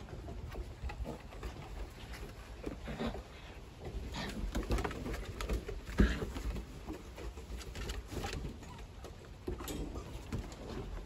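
Two husky–German shepherd mix puppies play-wrestling on wooden deck boards: irregular scuffling and tapping of paws and bodies, with a few soft puppy grunts and a sharp knock about six seconds in.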